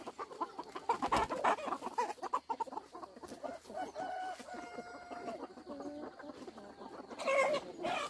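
A flock of chickens clucking, many short clucks overlapping, then several drawn-out, steady-pitched calls about halfway through and a louder call near the end.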